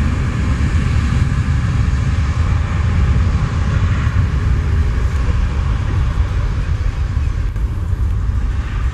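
Twin jet engines of an Airbus A319 airliner at high power for takeoff, a loud, steady low rumble with a hiss above it.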